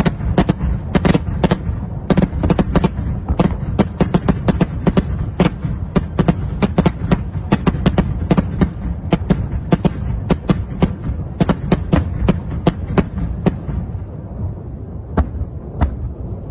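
Small explosions going off in a distant blaze: a rapid, irregular string of sharp cracks and bangs, several a second, over a steady low rumble. The cracks thin out to a few single ones near the end.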